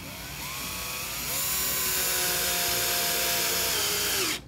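Cordless drill on its low setting driving a Phillips screw into a pine board. The motor whine rises in pitch as it spins up during the first second, runs steadily, then drops and cuts off just before the end.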